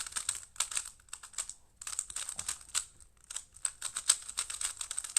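A 3x3 smart cube's plastic layers clicking and clacking as it is turned in fast, uneven bursts during a speedsolve.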